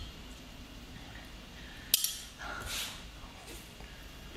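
A raw sea anemone being bitten into and slurped, a short wet mouth sound, with a single sharp click just before it.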